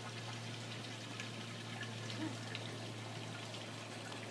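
A steady low hum under an even hiss like running water, with a few faint ticks.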